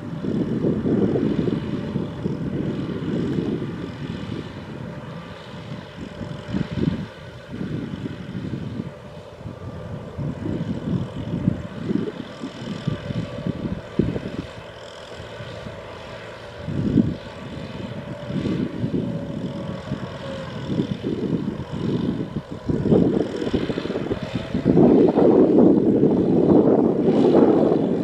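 Kubota M6040 tractors' diesel engines running under load as they haul trailers of rice sacks through deep mud, growing louder near the end as a tractor comes closer.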